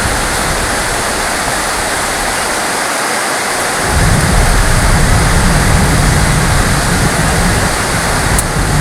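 Heavy rain falling steadily, with a low thunder rumble setting in about four seconds in and continuing.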